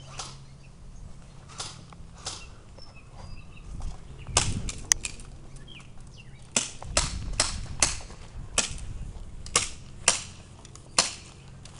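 Airsoft guns firing single shots, sharp separate pops at an uneven pace, with a quicker run of about five shots past the middle.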